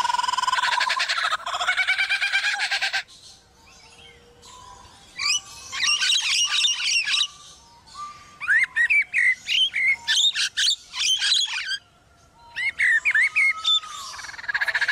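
Male superb lyrebird singing in full tail-fanned display: loud, varied whistled phrases of rapid, sharply rising and falling notes, in several bursts with short pauses between them.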